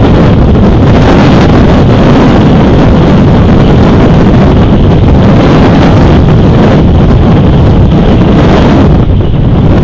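Wind buffeting a microphone outdoors: a loud, steady rumbling noise with no distinct events.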